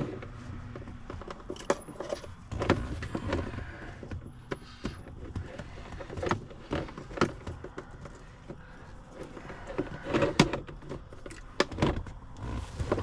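Irregular clicks, taps and light rattles of hard plastic interior trim and glove box parts being handled and fitted back into place, with a quick flurry of clicks about ten seconds in.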